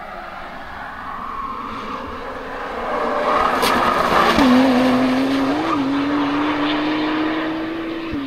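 2016 Honda NSX's twin-turbo V6 running hard as the car comes up to the camera and passes at speed. It is loudest about four seconds in, when the engine note falls as the car goes by. As the car pulls away the note climbs slowly, then drops suddenly near the end.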